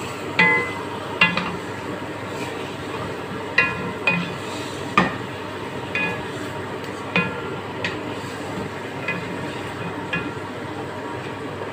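Lamb pieces frying in a pot with a steady sizzle while a spatula turns them. The spatula knocks against the metal pot about ten times at uneven intervals, each knock a short ringing clink.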